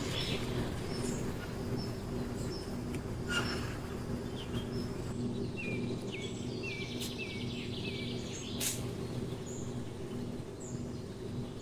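Outdoor ambience: a steady low hum with birds chirping. A quick run of about five short chirps comes around the middle, and two sharp clicks sit near the start and later on.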